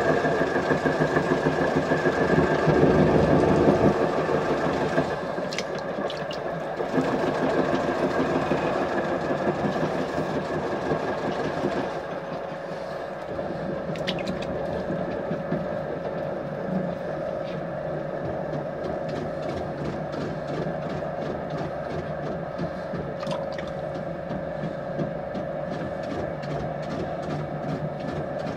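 Potter's wheel motor running with a steady hum, under the wet rubbing and squelching of clay being coned and centred by hand, loudest in the first few seconds and easing after about five.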